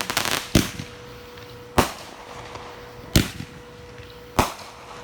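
Multi-shot consumer fireworks cake firing: a quick crackling burst at the start, then four sharp bangs about every second and a quarter.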